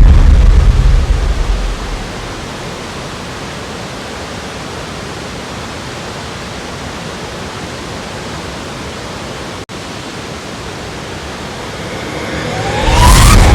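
Waterfall rushing as a steady, even roar of water. It is much louder, with a deep rumble, for the first couple of seconds and again near the end. There is a brief dropout about ten seconds in.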